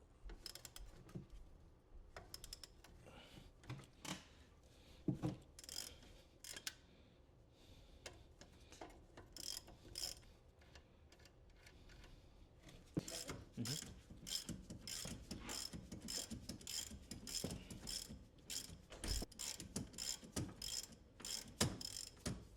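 Hand ratchet wrench clicking in short runs as a bolt is backed out, scattered at first and then in rapid, nearly continuous clicking for the last several seconds.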